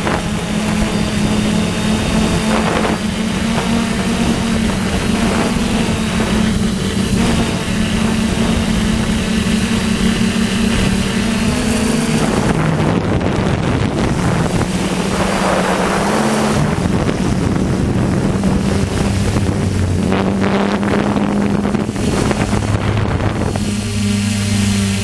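DJI F450 quadcopter's motors and propellers buzzing steadily in flight, heard from the onboard camera, the pitch shifting slightly as the craft manoeuvres, with wind rushing over the microphone. A second, lower buzz joins near the end.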